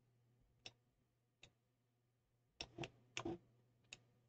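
Computer mouse clicking: about seven short, sharp clicks, a few spread out and then several close together about three seconds in, over a faint steady low hum.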